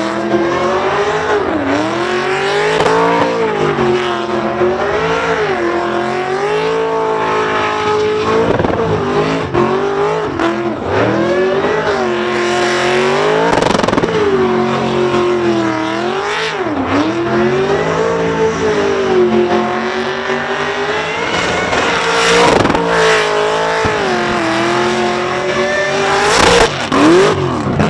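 Holden Commodore burnout car's engine held at high revs during a burnout, the revs dipping and climbing back over and over, with spinning tyres squealing.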